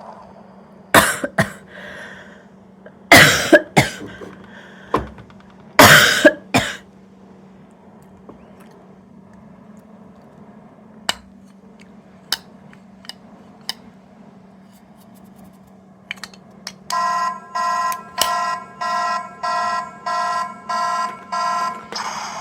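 Hard plastic knocking and clattering as a small toy is handled, with a few light clicks after. Near the end a small electronic sound toy plays an alarm-like beep, repeated about eight times in quick succession.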